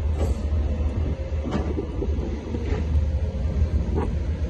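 Tracked excavator's diesel engine running with a steady low rumble, with four brief knocks as the bucket works the bulk cargo in the ship's hold.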